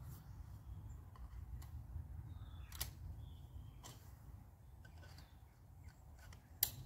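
Sectioned tent poles being assembled: a few sharp clicks and light knocks as the push-button nodes snap and the sections slot into place, the loudest click near the end, over a low steady rumble.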